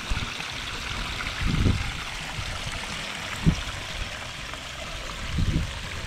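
Water of a small granite pondless waterfall spilling over the rocks into a gravel basin, a steady splashing trickle. A few low thumps break in, the sharpest about three and a half seconds in.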